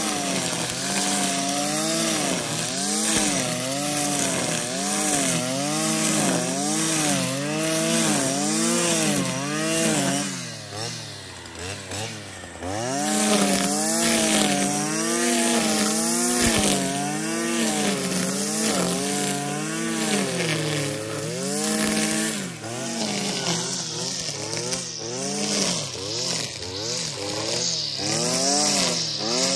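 Stihl FS 460 C two-stroke brushcutter spinning a 3.3 mm nylon trimmer line at high throttle. Its engine pitch rises and falls about once a second as the line sweeps through fresh grass and takes up and sheds load. About ten seconds in the engine drops to a lower speed for a couple of seconds, then picks up again.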